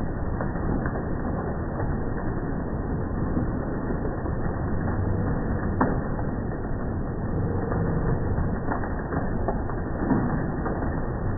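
Hail and rain falling heavily in a storm: a steady dense hiss with scattered sharp impacts from individual hailstones, one stronger hit about halfway through.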